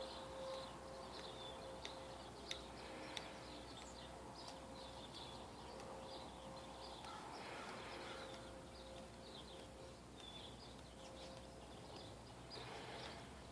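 Tornado warning siren sounding as a faint, steady tone that fades out about two-thirds of the way through, while birds chirp.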